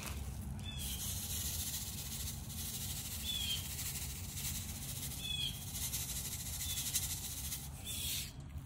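A bird calling outdoors: about five short, falling chirps a second or two apart, over a steady hiss and low rumble.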